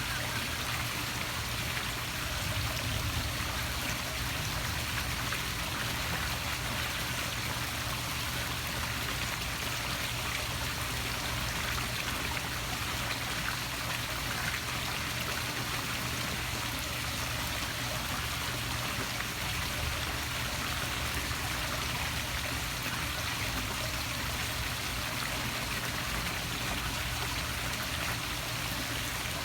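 Poolside waterfall splashing steadily into the pool, an even rush of falling water.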